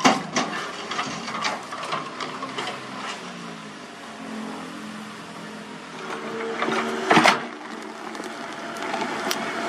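Komatsu tracked excavator working: its diesel engine runs under hydraulic load, its note shifting in pitch, amid clanking and knocking of the bucket and rubble, with one loud knock about seven seconds in.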